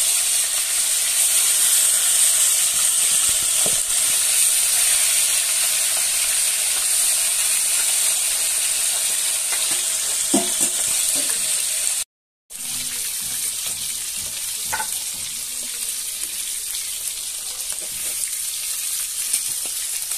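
Chicken pieces sizzling steadily as they deep-fry in hot oil in a kadai, with a few light clicks scattered through. The sound drops out for a moment about twelve seconds in and comes back quieter.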